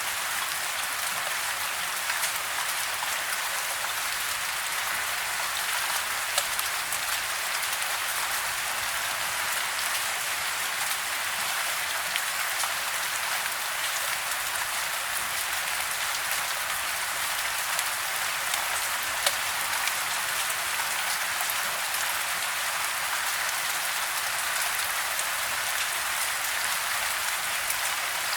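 Soft, steady rain falling on a house: an even hiss with scattered single drop ticks.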